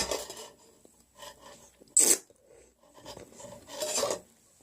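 Short rasping, rubbing noises of eating at the table: a knock at the start, a sharp brief burst about two seconds in and a longer one near the end.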